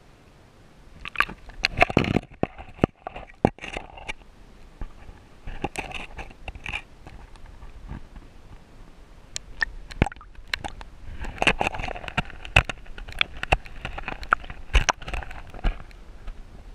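Underwater clicking and crackling picked up through an action camera's waterproof housing: irregular sharp clicks, with scratchy clusters about two seconds in, around six seconds, and a longer spell from about eleven to fifteen seconds.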